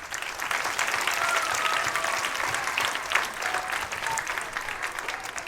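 Audience of young children and adults applauding, a dense clapping that fades toward the end.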